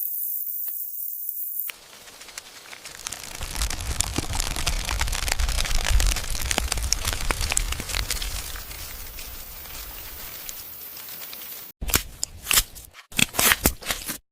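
A high hiss, then about ten seconds of dense crackling and rustling that swells and eases off, breaking into short separate crunches near the end.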